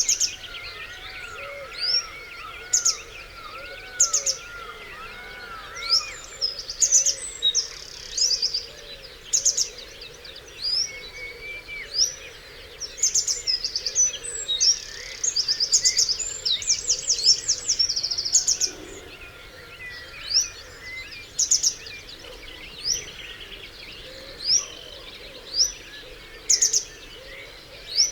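Dawn chorus of several songbirds. The loudest is a sharp, rising high call repeated every second or two, with two bursts of rapid high trills, and a lower bird repeating arching notes during the first six seconds. A faint steady stream runs underneath.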